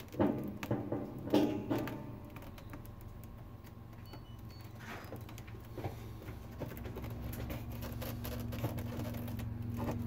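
No-frost refrigerator just powered up for a fan test, giving a steady low hum. A second steady tone comes in about two seconds in and slowly grows louder, and there are a few handling knocks in the first two seconds.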